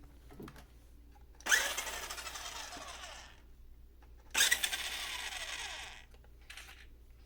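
A toy RC monster truck's electric motor and gearbox whirring in two bursts of about two seconds each as the wheels are run from the remote. Each burst starts suddenly and winds down.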